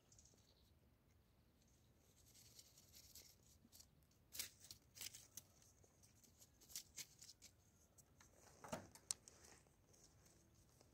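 Near silence with faint, scattered rustles and light crackles, clustered in the middle and near the end, from a kitten moving and pawing at a twig in dry grass and sand.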